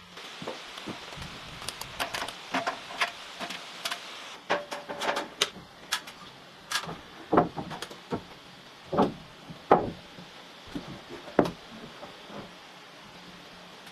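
Irregular knocks and clacks of wood and tools being handled during building work: about a dozen sharp impacts spread unevenly, a few with a short ring, tapering off near the end.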